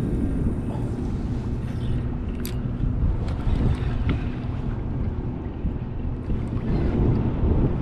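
Wind buffeting an action camera's microphone on an open boat, a steady low rumble, with a few sharp clicks, the clearest about two and a half seconds in.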